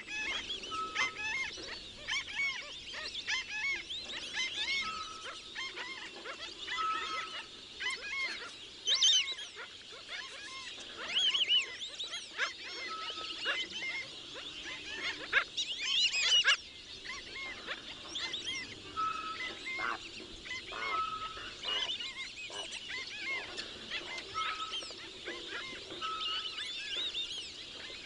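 A chorus of many birds calling over one another: a dense mix of short chirps and whistles, a short steady note repeated every few seconds, and a few louder, harsher calls about a third of the way in and near the middle.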